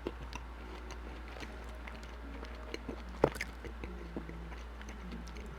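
Quiet eating sounds of a person chewing poutine: soft mouth clicks and smacks, with one sharp click a little over three seconds in, over a steady low hum.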